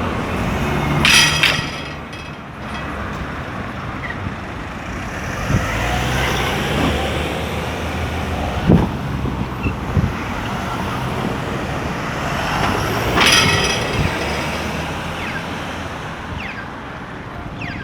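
Street traffic of buses and cars: engines running with a steady low hum. There are two short bright hisses, about a second in and again about 13 seconds in, and a couple of sharp knocks in between.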